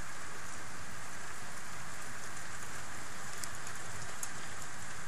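Steady rain falling during a thunderstorm, a continuous hiss of drops, with a couple of sharp drop ticks about three and a half and four seconds in.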